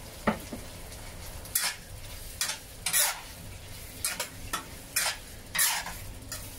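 Metal spatula stirring and scraping thick curry beef brisket and potato stew in a honeycomb-textured wok, in about ten irregular strokes over a steady low sizzle as the sauce reduces and thickens.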